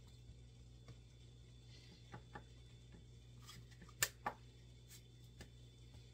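Hands patting and pressing a loose crumb crust flat in a parchment-lined metal baking pan: faint scattered taps and rustles over a low steady hum, with two sharper clicks about four seconds in.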